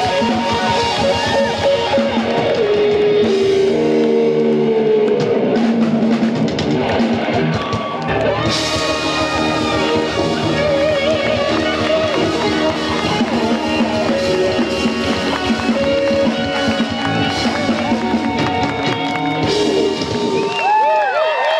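Live rock band playing: electric guitars, drum kit and keyboards. Near the end the drums and bass drop out, leaving held notes that waver in pitch.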